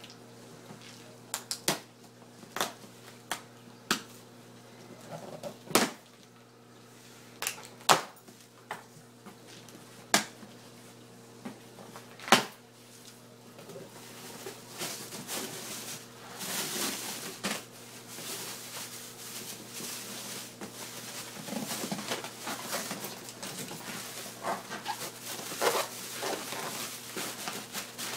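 Boxed protein skimmer and its packaging being handled: a series of sharp knocks and clicks, then steady rustling and scraping from about halfway through, over a faint steady electrical hum.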